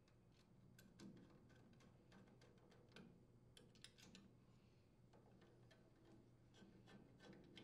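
Near silence with faint, scattered clicks from a nut driver threading the air filter base's mounting screws into a Briggs & Stratton small engine's carburetor.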